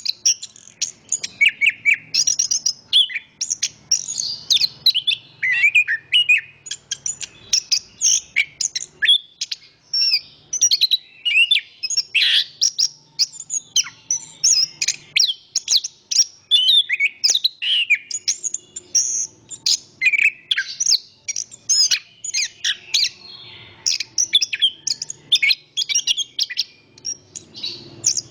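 Chestnut-capped thrush (anis kembang) singing continuously: a fast, varied run of high whistled and chattering phrases with hardly a break, over a faint low background noise.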